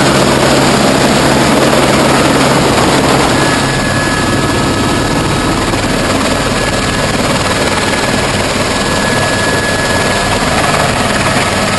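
Helicopter running on the ground, a loud steady din heard from inside the cabin. About three and a half seconds in, the low hum eases a little and a steady high whine comes through.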